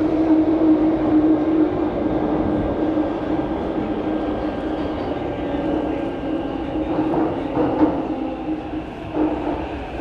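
Cabin sound of a Kawasaki–CRRC Qingdao Sifang MRT train slowing into a station: a steady hum from the running train that eases off, with a few short knocks around seven to nine seconds in.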